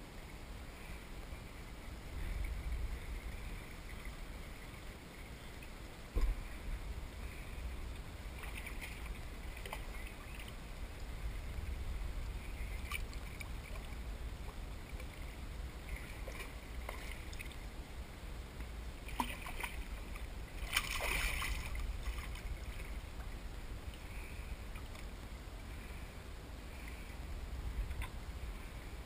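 Water lapping around a plastic kayak hull over a steady low rumble, with a sharp knock on the boat about six seconds in and a brief splash about two-thirds of the way through, while a hooked salmon is brought alongside.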